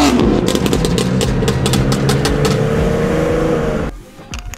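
Performance car engine coming off a hard rev, its exhaust popping and crackling as the revs settle: overrun backfire that throws flames from the tailpipes. The engine sound cuts off abruptly near the end.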